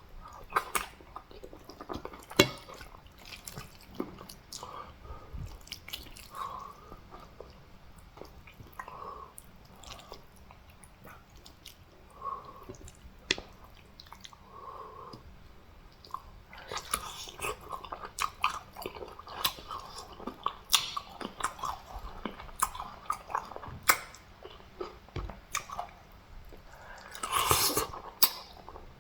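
Close-miked chewing and biting of fufu with soup, meat and fish: wet mouth clicks and smacks. These come scattered at first and grow thicker in the second half, with a louder burst near the end.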